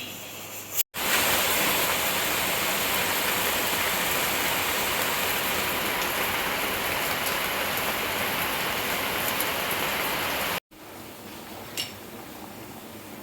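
Heavy rain falling steadily, an even hiss that cuts in about a second in and stops abruptly near the end.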